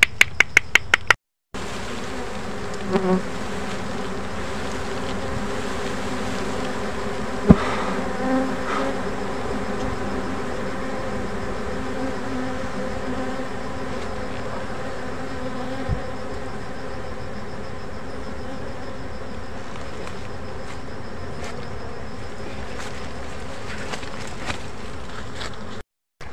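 Steady, close buzzing of a wild honey bee colony clustered on its exposed comb. A quick run of clicks comes at the very start, a single sharp snap about seven and a half seconds in, and a lighter click near sixteen seconds.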